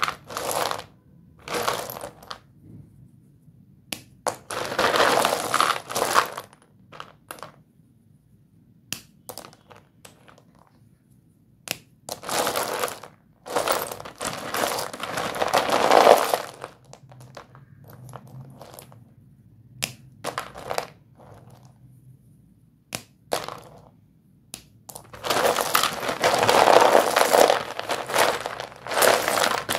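Hundreds of short white Doms dustless chalk sticks clattering against each other and a plastic tub as a hand rakes through the heap. The clatter comes in bursts of one to four seconds, with single clicks between.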